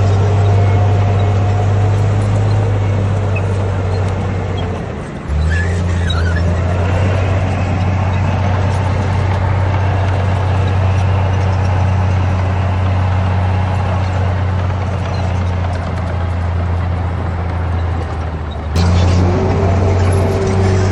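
Heavy diesel engine of a Komatsu D58P bulldozer running steadily at working speed, a deep even hum with short breaks about five seconds in and near the end.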